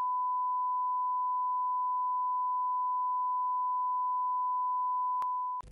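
Broadcast colour-bar test tone: one steady, unwavering pure beep at a constant level, which cuts off suddenly near the end, with a faint click shortly before it stops.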